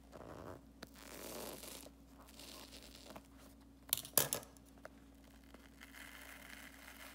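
Scissors cutting through the soft foam of a squishy toy, with two or three sharp clicks of the blades about four seconds in.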